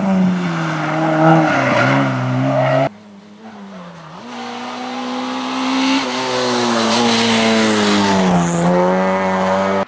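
Four-cylinder engines of small rally hatchbacks at high revs through tight bends: first a Citroën Saxo's engine falls in pitch as it brakes and shifts down, then cuts off suddenly about three seconds in. A quieter engine then rises in pitch as it accelerates, and from about six seconds a Peugeot 205's engine is louder, dipping and rising again near the end.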